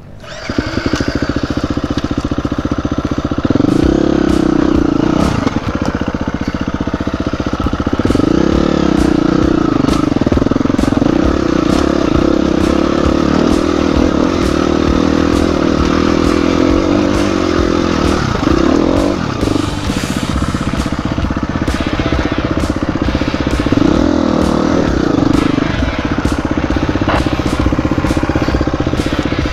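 Dirt bike engine running hard under load on rough trail, the revs jumping up with the throttle several times. Knocks and clatter from the bike bouncing over rocks.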